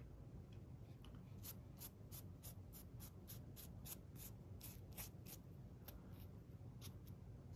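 Faint, scratchy strokes of a paintbrush dry-brushing acrylic paint onto a foam model stone wall, about three strokes a second, starting about a second and a half in.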